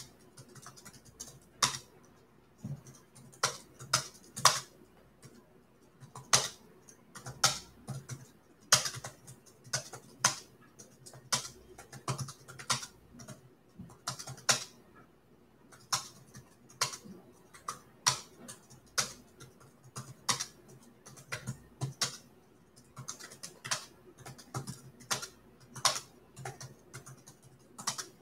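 Computer keyboard being typed on: scattered, irregular key clicks, one or two a second, with short pauses between them.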